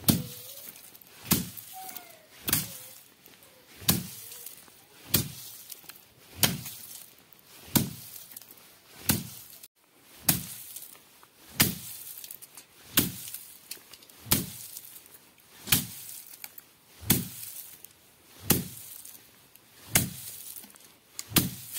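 A bamboo stick beating a heap of dried pigeon pea (arhar) stalks, one sharp whack about every 1.3 seconds in a steady rhythm. It is hand threshing, knocking the seeds out of the dry pods.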